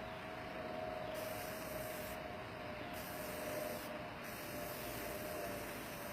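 Aerosol spray-paint can hissing in three bursts of about a second or more each, the first starting about a second in and the last running on to the end, over a steady hum.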